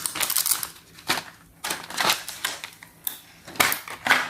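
Small hard plastic toy accessories clicking and clattering as they are handled and taken out of their packaging, in several short bouts of rapid clicks.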